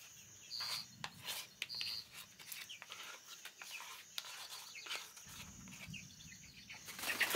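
A chicken makes short, high calls several times, mostly in the first two seconds. Under the calls a metal spoon scrapes and taps against a plastic bowl as thick peanut butter is cleared out of it.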